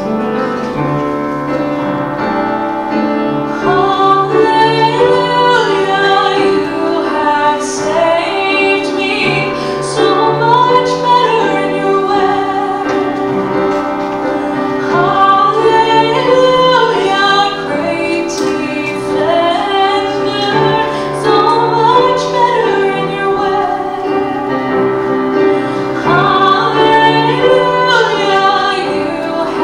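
Music: a woman singing with instrumental accompaniment that holds steady sustained chords.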